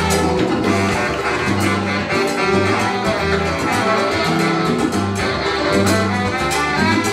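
Salsa band playing: horns over a repeating, syncopated bass line and steady percussion.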